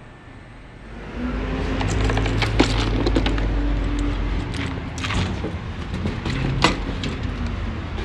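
Steady low traffic rumble that comes in about a second in. Over it, a handful of sharp metallic clinks and knocks as a tool bag's clips and tools are handled, two of them much louder than the rest.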